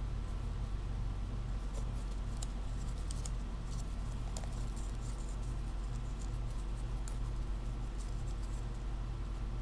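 Sheet of paper being folded and creased by hand: scattered soft crackles and rustles, busiest in the first half. A steady low hum runs underneath.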